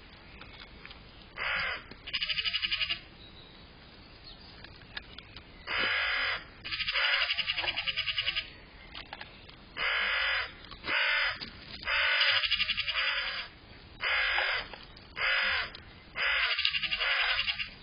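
A crow cawing over and over: about ten harsh calls of half a second to nearly two seconds each, some in close pairs, with short gaps between them.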